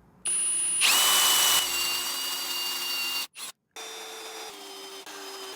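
Drill spinning a plug cutter into walnut: the motor starts about a quarter second in, with a louder rasp of cutting for under a second, then runs on with a steady whine. The sound drops out briefly just past three seconds, and the drill then runs on more quietly.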